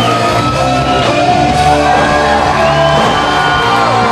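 Loud rock music with held, bending notes, a wrestler's entrance theme playing through the hall, with crowd shouts and whoops over it.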